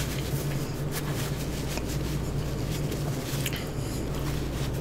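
Faint rustling of a paper towel being rubbed over the fingers, with a few soft crinkles, over a steady low hum.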